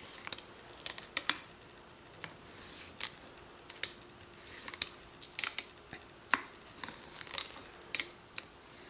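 Irregular sharp metallic clicks and clinks of a Remington Model 8's barrel nut being tightened down with a tool.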